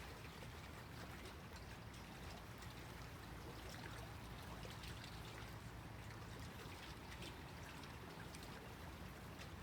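Small lake waves lapping gently at the shore: a faint, steady wash of water with a few light splashes.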